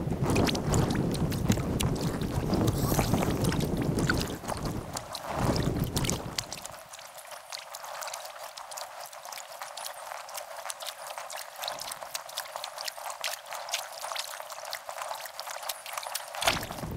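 Sped-up kayak paddling: a quick patter of paddle splashes and drips on the water, with wind rumbling on the microphone for the first six seconds or so.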